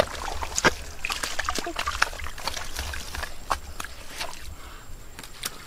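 Splashing and sloshing in shallow muddy water, with many short sharp clicks and knocks.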